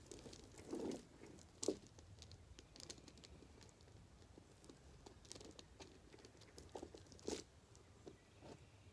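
Faint metallic clinks and rattles of a steel choker chain being handled around a log, with two sharper clanks, one a little under two seconds in and one about seven seconds in.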